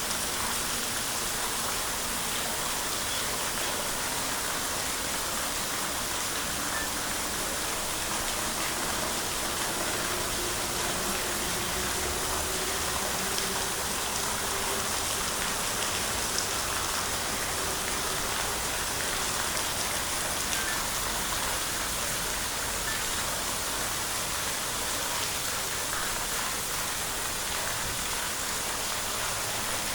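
Steady, even hiss of falling water, like rain.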